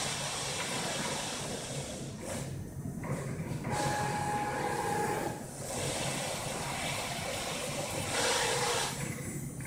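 Golf cart running slowly in reverse: a steady hum and hiss, with a brief steady whine about four seconds in.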